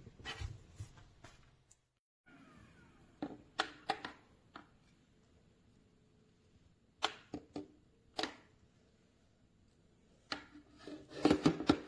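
Scattered light knocks and clicks, like objects being handled, in small clusters: a few around three to four seconds in, more around seven to eight seconds, and a quick run near the end.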